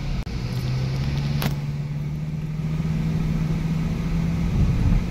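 Car engine and road noise heard from inside the cabin, a steady low hum that rises slowly in pitch as the car gathers speed. A single sharp click sounds about a second and a half in.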